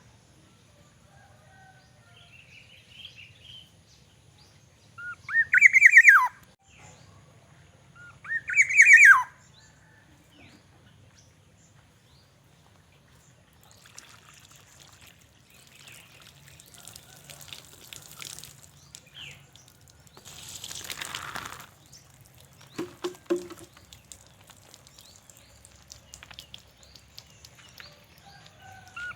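Black-naped oriole giving two loud slurred calls about three seconds apart, each rising briefly and then sliding steeply down. Later comes a stretch of fainter rustling, hissing noise.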